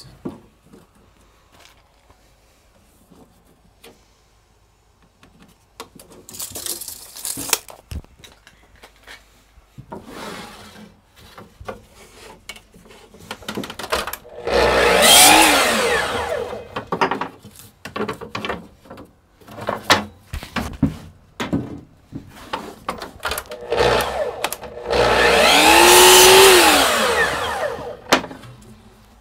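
Festool miter saw making two crosscuts through narrow wood strips. Each time the motor spins up, cuts through the wood and winds down over two or three seconds. Knocks and clicks of the wood being handled and placed come between the cuts.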